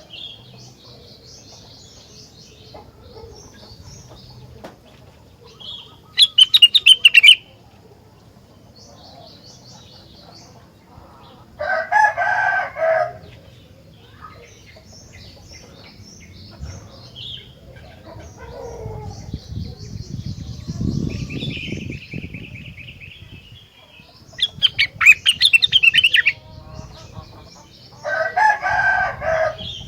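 A rengganis (cucak rawis) songbird calling: soft high chirps throughout, broken twice by loud, fast chattering bursts of song. A lower call of about a second comes in the middle and again near the end, and there is a low rumble a little past the middle.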